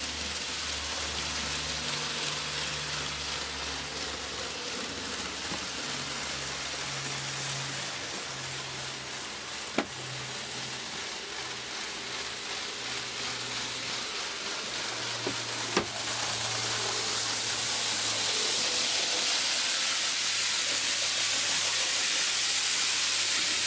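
N gauge model trains running on the layout's track: a steady hissing rush of wheels on rail with a low, wavering motor hum. Two sharp clicks come about ten and sixteen seconds in, and the sound grows a little louder after the second.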